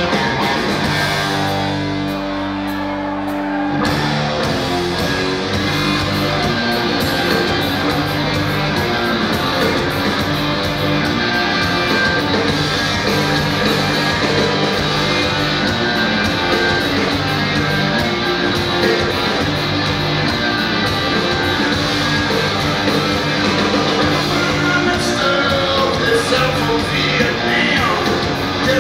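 Hard-rock band playing loud live through a club PA: a guitar opens alone, and drums and bass join about four seconds in to drive the song.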